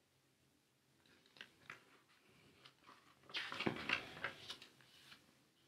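Paper booklet pages being handled and turned: soft rustles and small clicks, louder for a couple of seconds past the middle.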